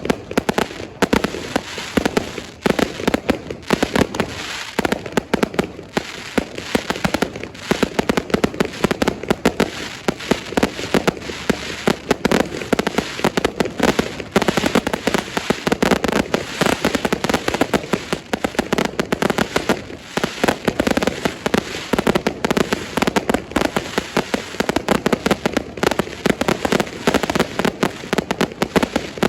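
Fireworks going off in a rapid, unbroken string of bangs and crackles.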